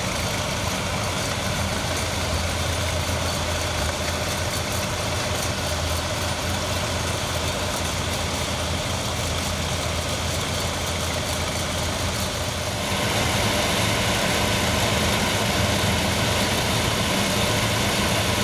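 Tractor engines idling steadily in a low hum; about thirteen seconds in the sound grows louder, with more hiss in it.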